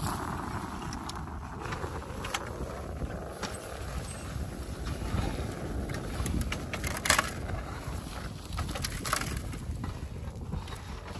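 Wind buffeting the microphone, with the rustle of a quilted pop-up ice-fishing shelter's fabric being handled and a few sharp clicks.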